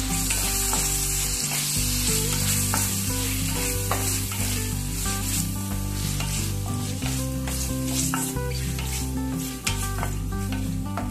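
Mutton pieces sizzling as they sauté in oil with onions and ginger-garlic paste in the bottom of a pressure cooker, a spatula stirring and scraping them over the metal with occasional light knocks.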